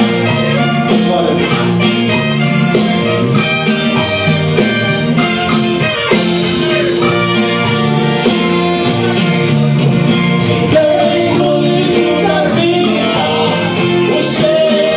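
Two men singing a gospel hymn into microphones over instrumental accompaniment with a steady beat.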